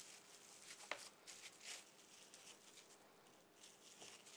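Faint crinkling and rustling of plastic cling film as hands roll and press a wrapped log of seitan dough on a plastic cutting board, with one sharp click about a second in.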